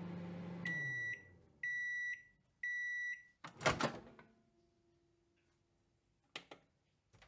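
Microwave oven ending its cycle: the running hum winds down, then three long beeps at one high pitch, about a second apart. A loud clunk follows, then a few faint clicks near the end.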